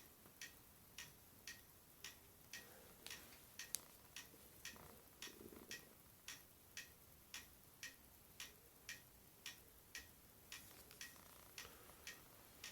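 Faint, steady ticking, about two evenly spaced ticks a second, in an otherwise near-silent room.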